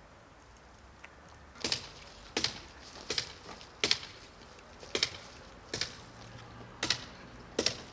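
A series of sharp knocks at a steady pace, about one every 0.7 seconds, starting about one and a half seconds in.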